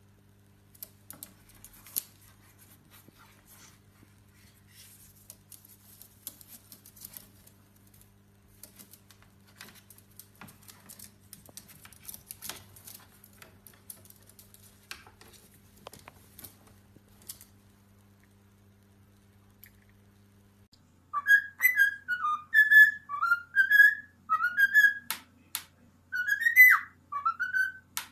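Faint, irregular clicks and taps. About three quarters of the way in, a parrot starts whistling a run of short notes that swoop up and down in pitch.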